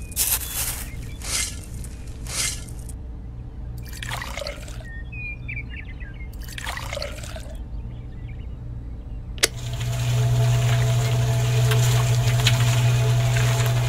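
A small scoop scraping and tipping sand into the drum of a toy concrete mixer, then water poured in twice from a little cup. About nine and a half seconds in there is a click, and the mixer's small electric motor starts with a loud steady hum.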